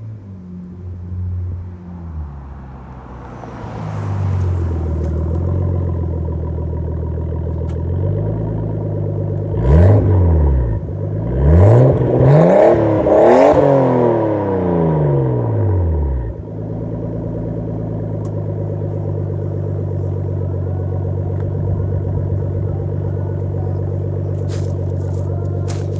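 Nissan Skyline's RB20DET turbocharged straight-six, on a Kakimoto Regu exhaust with no mid pipe, running, then revved sharply about four times in quick succession near the middle before settling back to a steady idle.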